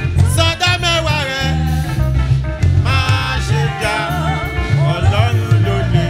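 Church choir and congregation singing a gospel praise song in full voice over a live band, with a heavy, steady bass line and beat.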